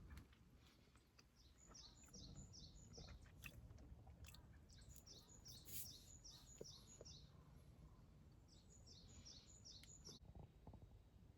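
A bird singing faintly: three phrases, each a quick run of about four to eight short, high, down-slurred notes, over a low background rumble.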